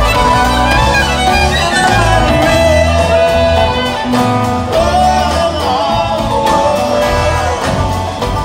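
Bluegrass band playing live, with a fiddle carrying the melody over strummed acoustic guitars and bass.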